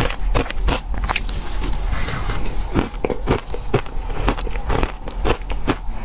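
Close-up crunching and chewing of shaved ice: a rapid, irregular run of sharp crisp crunches, several a second, as the ice breaks between the teeth.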